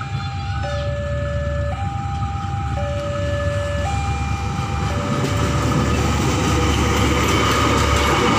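Level crossing warning alarm sounding a steady two-tone alternation, high then low, about a second each. From about five seconds in, the rumble of a KAI track-measuring railcar (Kereta Ukur Jalan Rel) builds and grows louder as it passes close by.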